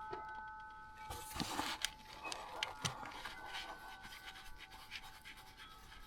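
Faint small clicks, knocks and scraping of the Honda Foreman 520's spring-loaded oil filter cover being pressed onto its housing while its small bolts are being started. A few faint steady ringing tones sound in the background.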